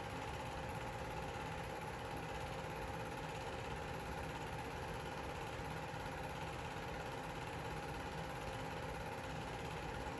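Film projector running: a steady mechanical whirr with a constant faint whine.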